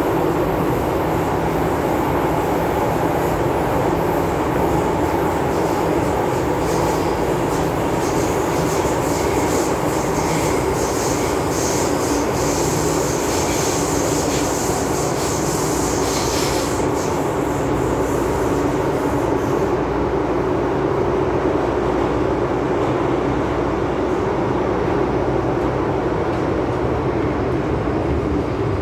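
MTR M-Train electric multiple unit running, heard from inside the car: a steady rumble of wheels on rail and running gear. A higher hiss rides on top from about eight to about seventeen seconds in.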